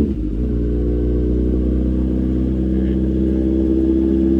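Kawasaki motorcycle engine idling steadily, warming up after a cold start.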